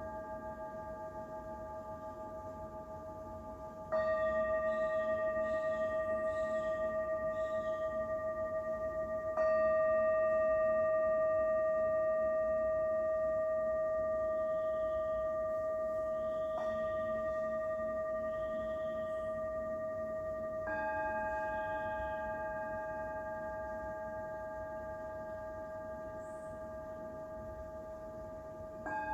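Singing bowls struck one after another, each strike bringing in a new ringing tone with several overtones over the slowly fading hum of the earlier ones. The tones waver in a steady pulsing beat. Fresh strikes come about four, nine and twenty-one seconds in, with a light one in between and another right at the end.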